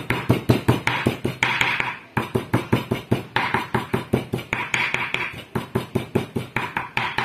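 Cleaver chopping ginger on a round wooden chopping block: rapid, even knocks about five a second, with a short pause about two seconds in.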